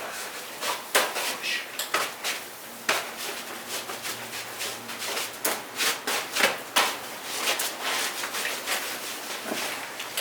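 Irregular scraping, rubbing and clinking of hand tools on metal, a string of uneven knocks and scrapes rather than a steady machine.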